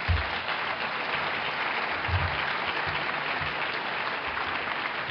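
Audience applauding, a steady round of clapping.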